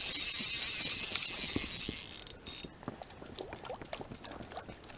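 Fly reel's click-pawl ratchet buzzing as line is wound in quickly for about two and a half seconds after freeing a snag, then a few scattered light ticks.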